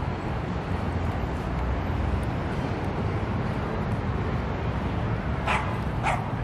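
A dog barking twice, two short sharp yaps about half a second apart near the end, over a steady low rumble of city traffic.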